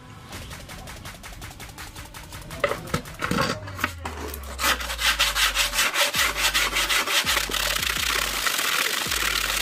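Sandpaper rubbed by hand over a plywood speaker box: rapid, even back-and-forth strokes that grow much louder about halfway through.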